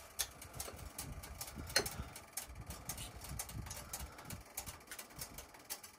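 Metal spoon clinking and scraping in a glass bowl of corn fritter batter as it is scooped up: scattered light ticks, with one sharper clink about two seconds in.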